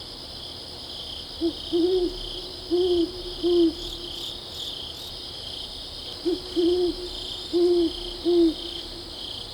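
Great horned owl hooting: two series of four low, deep hoots, one about a second and a half in and the other about six seconds in, with a steady high-pitched insect trilling behind them.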